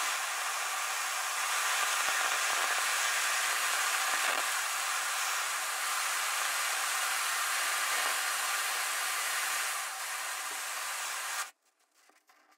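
Gas blowtorch burning with a steady hiss as its flame heats a steel gun barrel. The hiss stops abruptly near the end.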